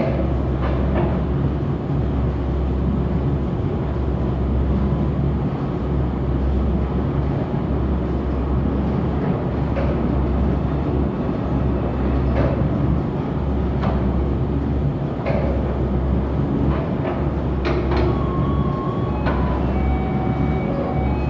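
Automatic open-box forming machine running: a steady low mechanical hum that pulses on and off, with occasional short clacks.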